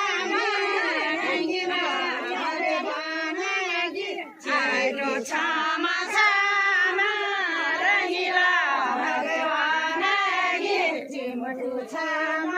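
A group of women singing a Kumaoni folk song together in chorus, their voices high and overlapping, with a short break between lines about four seconds in.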